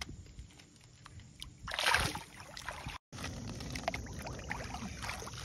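Water splashing in shallow river water as small fish are released by hand, with one louder splash about two seconds in. After a sudden cut, lighter sloshing continues as a second fish is let go.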